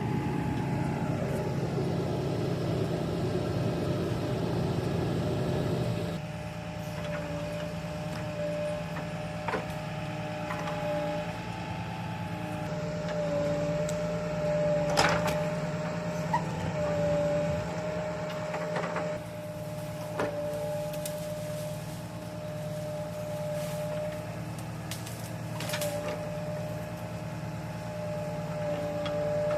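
Heavy tree-removal machinery, a crane engine, running steadily with a low hum and a held whine, and four sharp clicks or knocks spread through.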